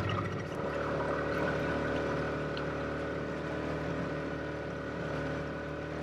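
Outboard motor on an inflatable dinghy running steadily under way, heard from aboard the dinghy.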